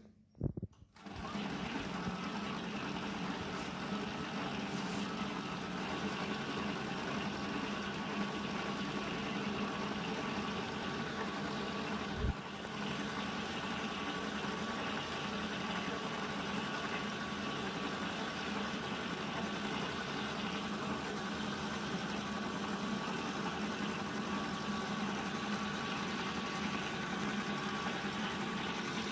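Spiral dough mixer running steadily, its motor humming with a steady tone as the spiral hook kneads pizza dough. A couple of clicks come before the motor starts about a second in, and there is one brief thump about twelve seconds in.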